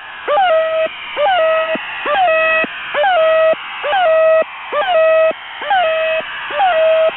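The Goose, a Russian military shortwave channel marker on 4310 kHz, received in upper sideband: a repeating goose-like squawk, each a quick upward chirp into a short held tone, about once a second, over radio hiss.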